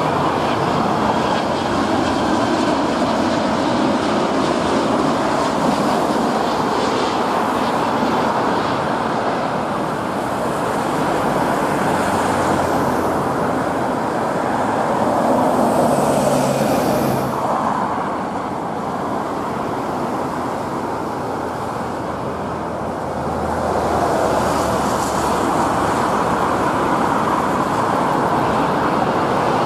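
Jet airliners landing: the continuous engine noise of a Boeing 787-9 passing low overhead on final approach and rolling out on the runway, then a Boeing 777-200ER approaching. The noise swells and fades a few times as each aircraft passes.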